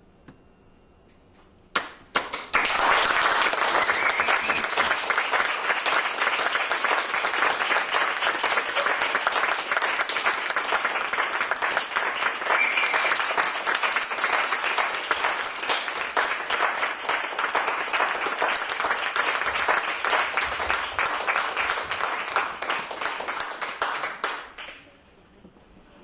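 Audience applauding at the end of a theatre performance. The clapping starts with a single sharp clap about two seconds in, builds at once into dense, sustained applause, and dies away a couple of seconds before the end.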